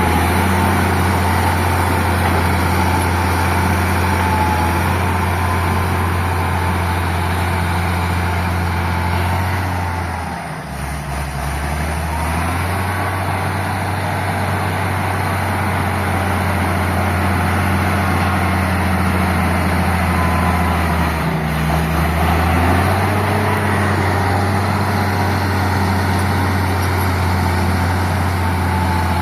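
Old Caterpillar D6 crawler tractor's diesel engine running with a deep, steady note. About ten seconds in it briefly drops in loudness and pitch, and it shifts pitch again a little past twenty seconds.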